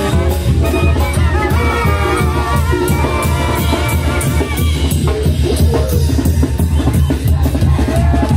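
Oaxacan brass band (banda de viento) playing a lively tune, with drums and cymbals keeping a steady beat. The horn melody is prominent for the first few seconds, and the drums come more to the fore after that.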